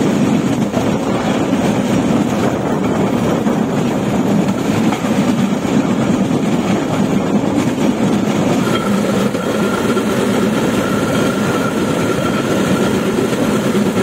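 Railway motor trolley running at speed along the track: a loud, steady running noise of its motor and steel wheels on the rails. A thin, steady high whine joins about halfway through.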